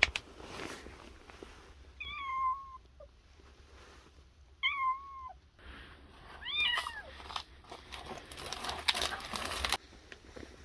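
A cat meowing three times, short high calls a couple of seconds apart, the last one bending up and down; a sharp click comes at the very start, and a stretch of rustling noise follows near the end.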